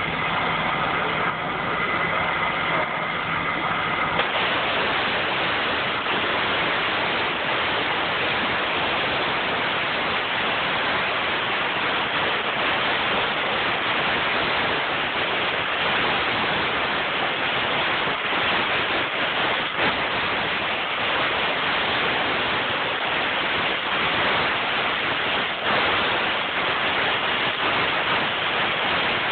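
Flame-cutting torch hissing steadily as its jet cuts through an iron post. For the first four seconds a steady machine hum with held tones sits under the hiss, then the tones stop and an even, full hiss carries on.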